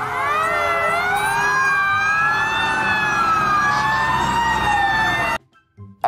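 Several fire engine sirens wailing at once, their pitches rising and falling slowly and crossing one another over a low rumble, cutting off suddenly about five seconds in.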